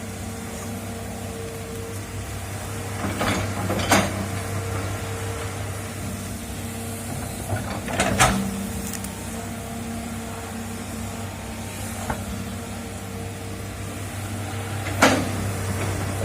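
Excavator's engine running steadily, with four sharp clanks of the working gear spaced a few seconds apart.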